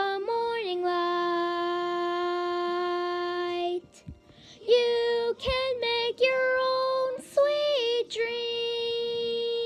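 A young girl singing unaccompanied. She holds one long note, breaks briefly, sings a quick run of short notes, then holds another long note, higher than the first.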